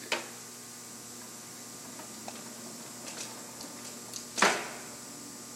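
Takisawa/Yuasa TSL-1000 engine lathe running with a steady hum, with a sharp click just after the start, a few light ticks, and a louder clunk about four and a half seconds in as its controls are set for threading.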